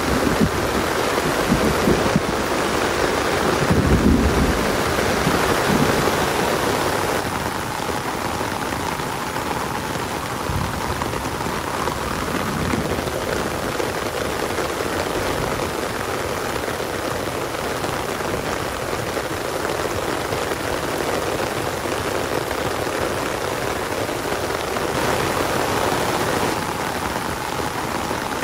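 Steady, dense rainfall, with a few low rumbles in the first six seconds or so, the strongest about four seconds in.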